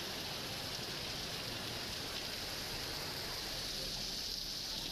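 Steady hiss of rain falling, an even wash of noise that holds at one level throughout.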